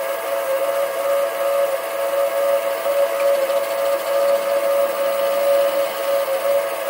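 Sieg SC3 mini-lathe running with a steady high whine from its motor and gearing while a 9 mm cutter in the chuck takes a light milling pass across an aluminium block.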